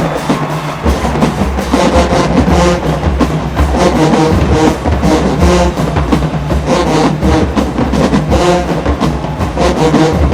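Marching band playing loudly, with pitched notes held over a steady beat of drums.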